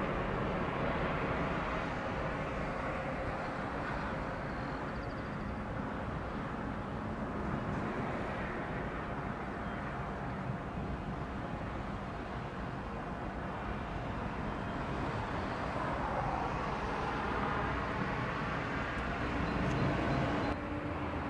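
Jet engine noise from a Boeing 787-9 airliner climbing away after takeoff: a steady, distant rumble and hiss with no rhythm. The sound changes abruptly near the end.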